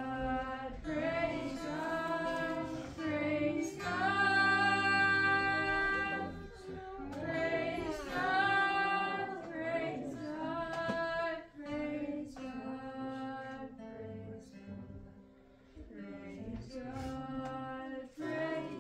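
A woman singing a slow worship song in long held notes, with a soft instrumental accompaniment underneath.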